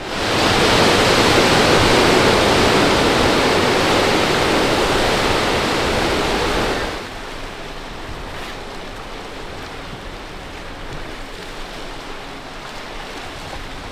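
Steady rushing wash of sea surf, loud for the first seven seconds or so, then dropping suddenly to a quieter, more distant wash of waves.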